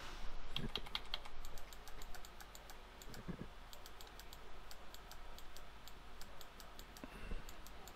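Computer keyboard keys clicking in many quick, irregular taps.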